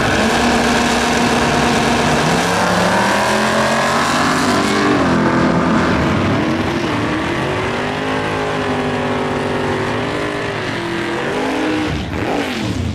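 Two vintage muscle cars, a first-generation Chevrolet Camaro among them, launching side by side from a drag strip start line and accelerating hard down the track. The engines rise in pitch several times with brief dips between (gear changes), and the sound fades shortly before the end.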